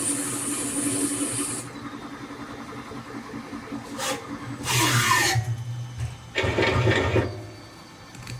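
LEVIL LTC30 CNC lathe machining 4140 alloy steel: a steady high hiss and hum of the cut that stops under two seconds in. A few short, loud, noisy bursts with a rubbing, rasping character follow, and the machine then settles to a quiet hum.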